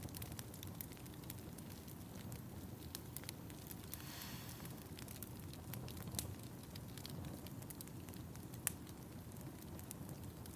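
Wood fire crackling in a fireplace: a steady low rumble of the flames with scattered sharp pops and a brief hiss about four seconds in. One louder pop comes near the end.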